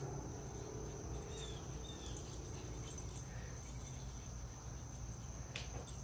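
Backyard ambience: a steady high-pitched insect drone over a low rumble, with a couple of short faint chirps about a second and a half and two seconds in.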